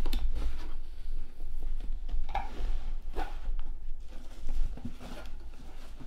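A large cardboard carton being handled and opened: flaps folding back, cardboard rubbing and scraping, with scattered light knocks.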